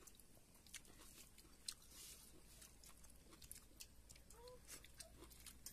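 Near silence with faint chewing and soft mouth clicks from someone eating rice by hand, plus a short faint animal call about four and a half seconds in.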